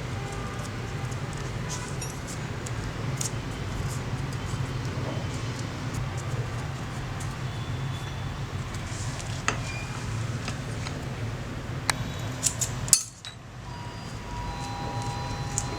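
Sharp metallic clinks of steel tools and pruner parts being handled, a few of them spread out and a cluster near the end, over a steady low hum.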